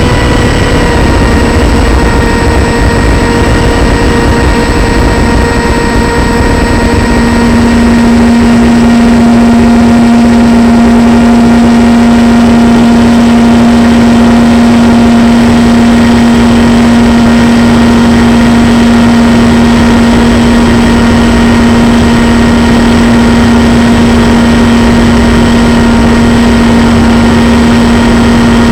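RC plane's motor and propeller running steadily in flight, heard from the plane's onboard camera: a loud, even hum with a faint high whine above it. About seven seconds in, the hum settles to one louder, steady pitch, which it holds.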